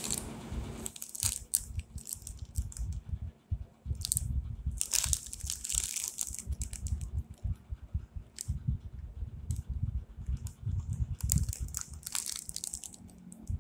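Crinkling and crackling of a thin plastic bread wrapper squeezed and turned by hand, in several bursts, the longest about five seconds in and again near the end, over a low rumble.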